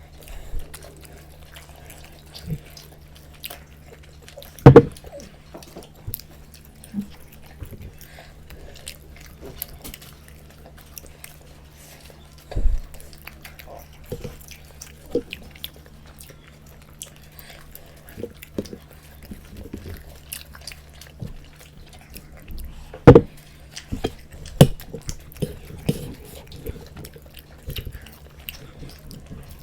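Close-up eating sounds of momos and Maggi noodles being chewed, with many small wet mouth clicks. There are three louder knocks, about five, thirteen and twenty-three seconds in, over a steady low hum.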